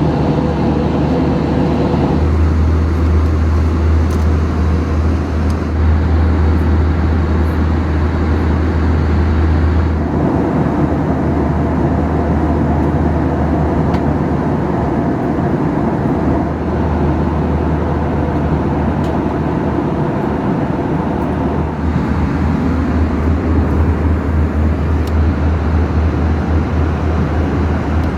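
Steady cabin noise of an Airbus A321 in flight: engine and airflow noise with a deep low rumble. The rumble grows louder about two seconds in and eases off about ten seconds in.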